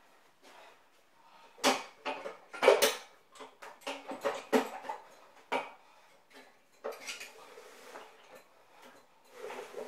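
Metal gym equipment clanking and rattling as it is handled, with irregular sharp knocks of metal on metal. The loudest strikes come a little under two seconds in and again near three seconds, with scattered lighter clinks after.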